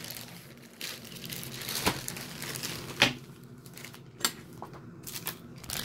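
A bag of packaging being handled and opened: crinkling and rustling with a few sharper crackles, the loudest about three seconds in.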